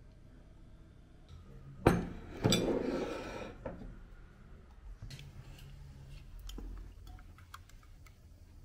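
A plate with a fork set down on a desk: a sharp knock about two seconds in, then a clatter that trails off over about a second. After that, a few faint clinks of ice in a glass.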